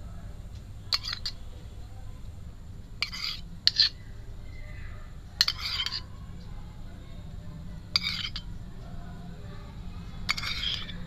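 A metal spoon scraping and clinking against a bowl and plate in about six short, separate strokes while red sauce is spooned onto puris, over a low, steady hum.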